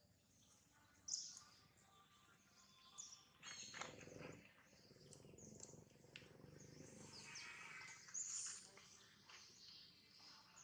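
Near-quiet outdoor ambience with a few faint, short bird chirps, the clearest about a second in, near four seconds and near eight seconds.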